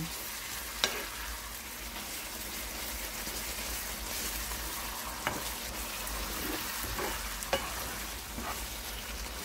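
Bilimbi achar simmering and sizzling in mustard oil in a pan while a wooden spoon stirs it, with a few light knocks of the spoon against the pan. The bubbling comes from the water still cooking out of the frozen bilimbi.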